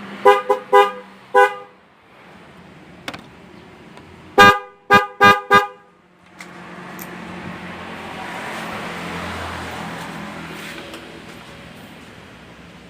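Denso waterproof dual snail horns sounding in short toots with a two-note blare: four quick beeps, a pause of about three seconds, then four more. Afterwards a rushing noise swells and fades.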